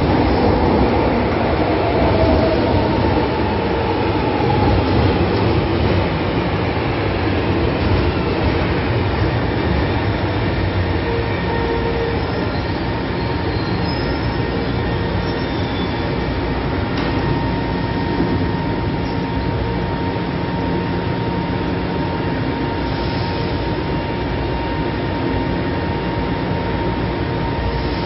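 São Paulo Metro train pulling in along the platform and braking to a stop, its whine falling in pitch as it slows during the first few seconds. It then stands at the platform with a steady hum and a high whine.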